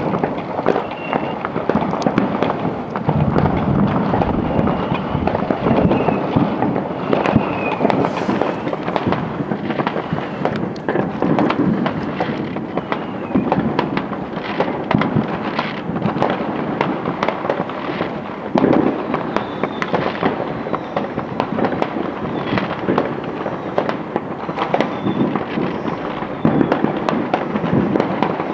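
Many fireworks going off at once with no pause: a dense barrage of bangs and crackling, with a few short whistles over it.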